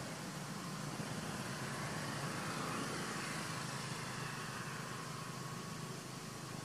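Steady low hum of a motor vehicle engine, swelling a little about two to four seconds in and fading again.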